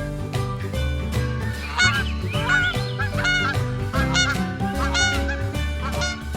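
Domestic goose honking repeatedly, a string of calls about once a second that starts about two seconds in, over background music.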